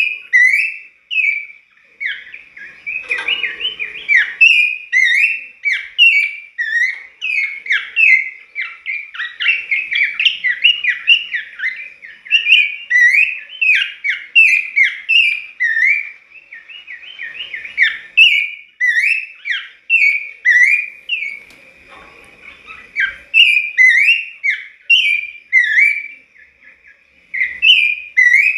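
A caged pelanduk semak (Horsfield's babbler) singing hard, a fast string of short, loud whistled notes that slide up and down, with brief pauses.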